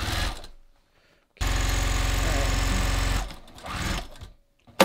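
Electric sewing machine stitching a seam in stretchy knit fabric. It stops briefly, then runs steadily for about two seconds before stopping again. A sharp click comes near the end.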